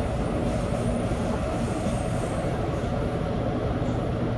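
Busan Subway Line 1 train running at speed, heard from inside the train: a steady rumble of wheels on rail and running gear.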